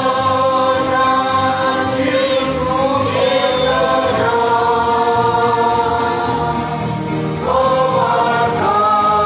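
A congregation of many voices singing a hymn together, holding long notes.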